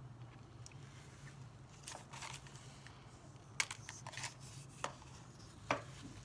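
A few scattered keystrokes on a computer keyboard, with a short rustle about two seconds in, over a steady low hum.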